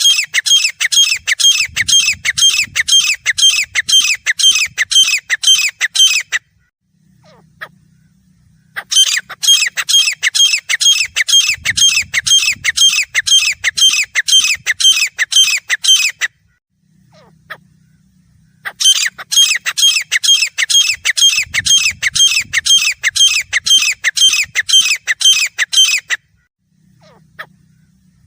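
Grey francolin calling: loud, shrill notes repeated quickly and evenly, about three a second. The calls come in three long bouts of about seven seconds each, separated by short pauses.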